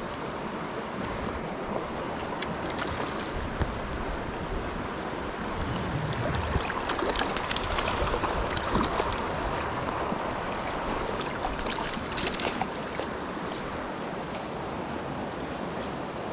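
Creek current rushing steadily, with a hooked trout thrashing and splashing at the surface in the middle stretch as it is played toward the net.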